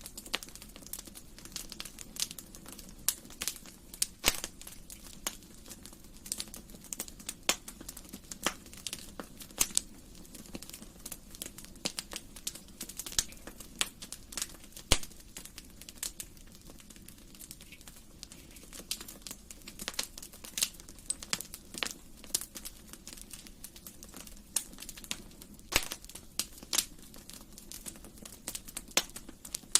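Wood fire in a fireplace crackling, with irregular sharp pops and snaps of various sizes over a soft steady hiss of burning.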